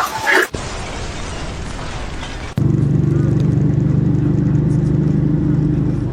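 A brief voice, then an even rushing noise, then about two and a half seconds in a loud engine-like drone starts suddenly and runs steadily.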